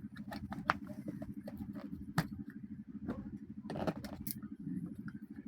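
Small hard clicks and taps of batteries and a plastic battery compartment being handled while batteries are fitted into a toy, with a sharper click about two seconds in and a cluster near the end. A steady low hum runs underneath.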